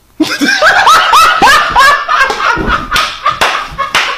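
Loud, hysterical laughter in quick repeated high-pitched bursts, with several sharp hand slaps in the second half.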